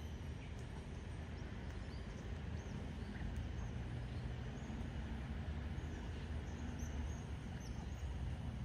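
A steady low rumble with scattered faint, short, high-pitched chirps from small animals.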